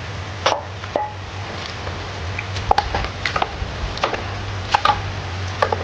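A utensil knocking and scraping against a stainless steel pot as a thick, creamy salad is stirred: irregular light clicks and knocks over a steady low hum.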